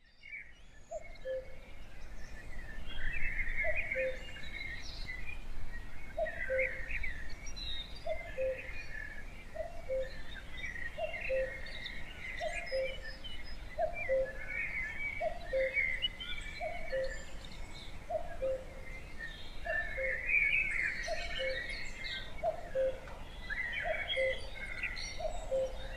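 Birds chirping and twittering throughout, with a low two-note falling call repeated about once a second over a steady low background rumble.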